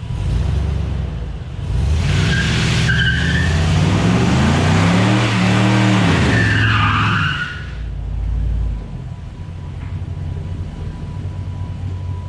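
1951 Mercury sedan doing a burnout: the engine revs up about two seconds in and holds high while the rear tires spin and squeal. About seven to eight seconds in it drops back to a steady idle.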